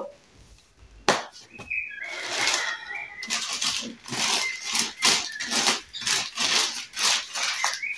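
Newspaper sheets rustling and crinkling as they are handled and folded, with a sharp tap about a second in.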